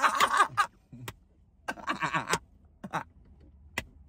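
A man's voice trailing off, then short bursts of men's laughter separated by pauses.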